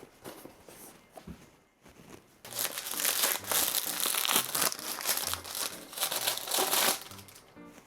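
Food packaging being crinkled and handled, starting about two and a half seconds in and going on for about four and a half seconds.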